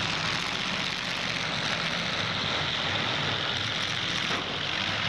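Several demolition derby car engines running together, a dense steady wash of engine and exhaust noise with no distinct crash.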